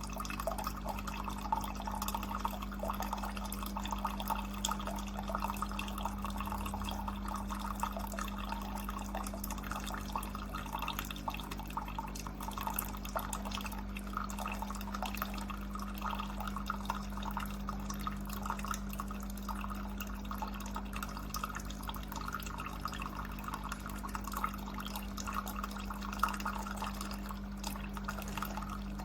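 Cuisinart coffee maker brewing: water dripping and trickling over a steady low hum.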